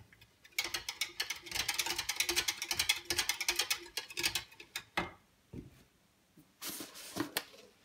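Wire balloon whisk beating a thin liquid sauce in a plastic measuring jug: rapid, rhythmic clicking of the wires against the jug's sides. The whisking stops about five seconds in with a single knock.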